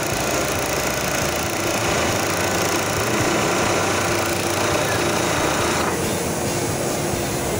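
Weitu B4 auto-flipping tape edge sewing machine running, its sewing head stitching the tape edge around a mattress with a fast, steady mechanical chatter.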